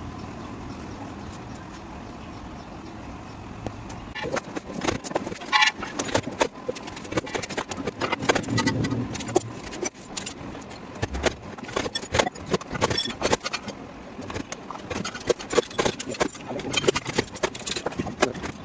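Irregular metallic taps, clinks and knocks from bodywork tools working a dented car panel. They start about four seconds in, over a steady low rumble.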